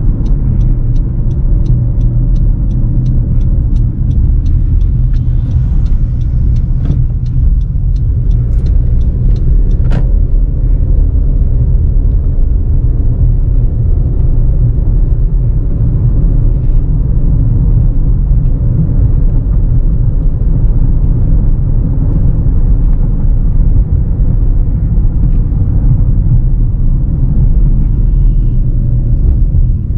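In-cabin rumble of road and engine noise from a 2018 Honda CR-V with a 1.5-litre turbo four, cruising steadily at moderate speed. Over roughly the first ten seconds a run of regular light ticks, about three a second, sounds over the rumble.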